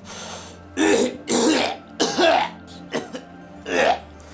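A man in a coughing fit: about five harsh, throaty coughs in quick succession, some of them voiced, over a low steady background of music.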